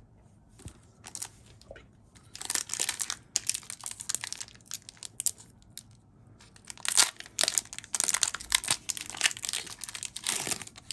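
Foil Pokémon booster-pack wrapper crinkling and tearing as it is handled and opened, in two long spells of crackling, the first starting about two seconds in and the second near the middle.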